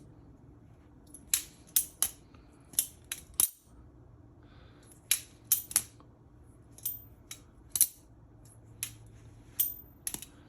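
Balisong (butterfly knife) being flipped by hand: its metal handles clack against each other and the blade in a run of sharp, irregular clicks, some close together in pairs.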